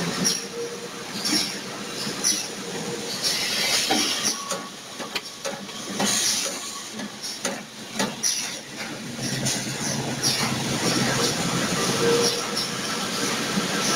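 Automatic cling film rewinder running: a continuous mechanical clatter and hiss with irregular knocks and clicks.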